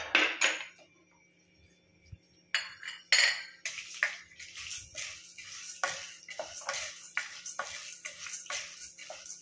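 A spatula stirring chana dal (split chickpeas) in a stainless steel kadai to dry-roast it in a little oil until golden. A few clinks come at the start. From about two and a half seconds in, rattling scrapes against the steel follow at about three a second.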